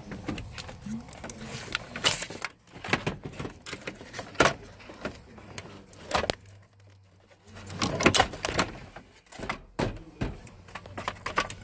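Irregular plastic clicks and rattles of wiring connectors being unlatched and pulled from the back of a Dodge Ram instrument cluster, in several short bursts.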